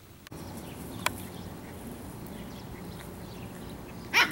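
Faint steady background, then near the end a single short, high yip from an Italian Greyhound puppy.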